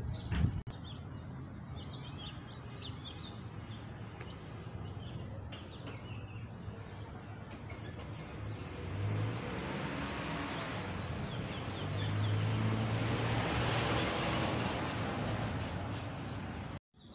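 Outdoor street ambience with small birds chirping, then a passing car whose noise swells through the middle and eases off near the end. A brief thump right at the start.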